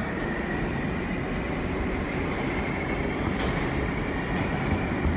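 R143 subway car running at speed through a tunnel, heard from inside the car: a steady rumble of wheels on rail with a faint high whine from the traction motors and a couple of clicks from the wheels.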